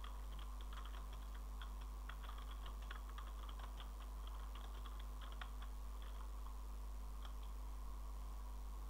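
Typing on a computer keyboard: quick, irregular key clicks that thin out near the end, over a steady low electrical hum.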